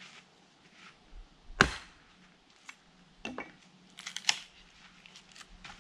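Hatchet strikes on a piece of wood set on a stump chopping block: one sharp crack about one and a half seconds in, then a few lighter knocks.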